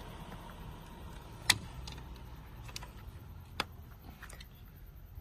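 Two sharp clicks about two seconds apart, with a few fainter ticks, over a low steady rumble.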